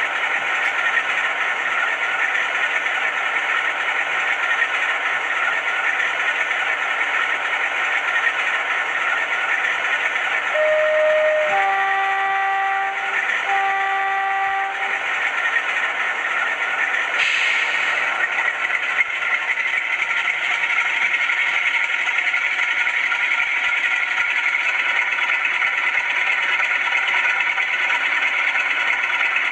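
Zimo ZS47A sound decoder in a model Class 47 diesel locomotive playing the engine sound through its bass reflex speakers, a steady drone. About ten seconds in there is a brief tone, then two horn blasts, and about seventeen seconds in the engine note rises and grows fuller as the locomotive moves off.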